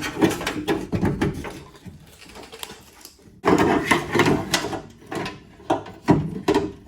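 Clattering and knocking of a stripped car door shell and its loose parts being handled and moved, in bursts: a run of knocks, a short lull, then the loudest clatter about three and a half seconds in, with a few more knocks near the end.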